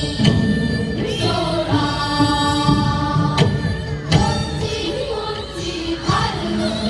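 Loud performance music with singing, held melody notes and scattered percussion hits.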